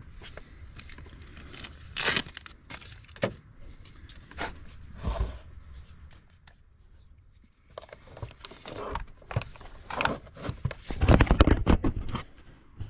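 Handling noise from under a car's hood: scattered knocks and scrapes as the hard plastic battery cover is lifted and moved. Near the end comes a dense stretch of close rubbing and knocking as the camera itself is handled.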